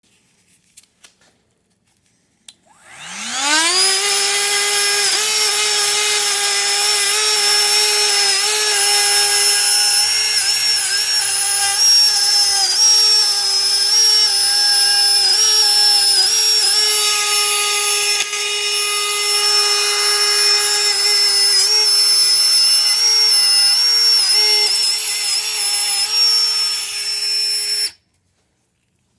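Powered wire-brush wheel spinning up with a rising whine about three seconds in, then running at a steady high whine. Its pitch dips briefly now and then as rusty brake parts are pressed against it, and it cuts off suddenly near the end.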